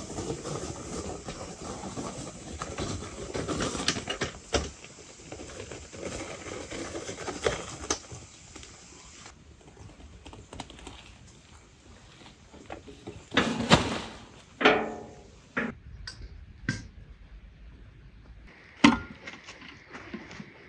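Metal wheelbarrow rattling with many small clicks as it is pushed, then a load of clay soil tipped out onto a woven plastic tarp: a few heavy thuds with a crumbly rustle, and a single sharp knock near the end.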